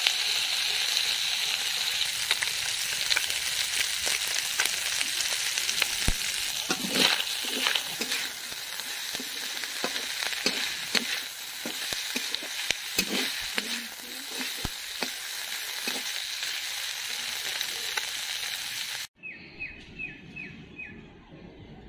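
Small fish frying in oil with onions and chillies in an aluminium kadai, sizzling steadily while a metal spatula scrapes and stirs against the pan. Near the end the sizzle cuts off suddenly, giving way to a quieter background with a quick run of a few high ticks.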